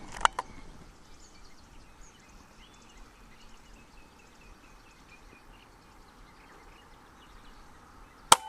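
Quiet outdoor background with faint bird chirps, a couple of small clicks near the start, then near the end a single sharp crack: a suppressed .22 PCP air rifle, a Daystate Red Wolf Safari, firing.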